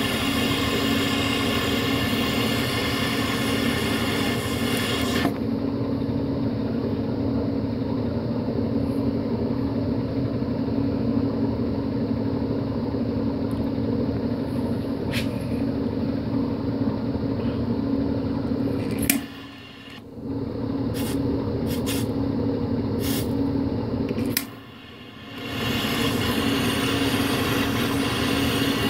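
Handheld butane torch burning with a steady hiss as its flame is held on wet toilet paper, cutting out briefly twice in the last third.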